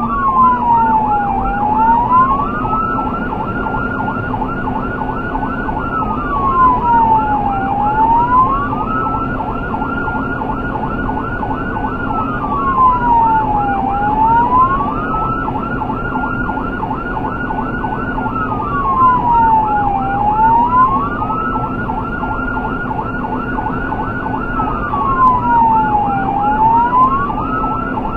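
Emergency vehicle siren sounding continuously: a slow wail that falls and rises again about every six seconds, with a rapid warble of about four cycles a second over it and a steady low hum underneath.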